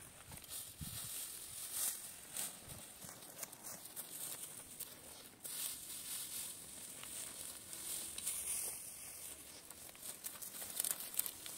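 Dry grass and a plastic sheet rustling and crinkling as they are handled, in irregular scratchy bursts.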